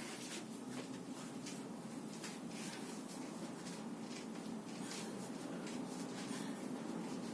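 Soft, irregular rustling and rubbing, many small scrapes, over a steady low hum.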